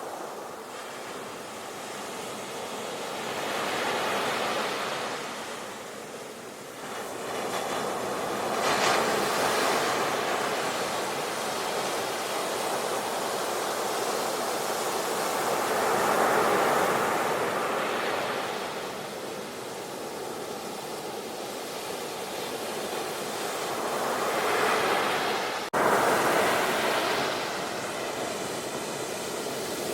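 Sea waves breaking and washing in, rising and falling in slow surges every several seconds, with a brief dropout a little before the end.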